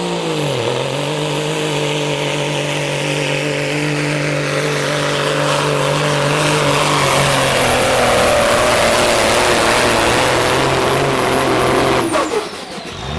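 Pro stock semi truck's diesel engine pulling the sled under full load: a heavy, steady drone with a high whistle above it. The pitch dips as the load comes on in the first second. About twelve seconds in, the engine is let off and the drone and whistle fall away quickly.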